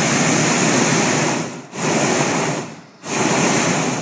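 Hot-air balloon's propane burner firing with a loud, steady rush. It cuts out briefly about a second and a half in and again about three seconds in, resumes each time, and shuts off at the very end.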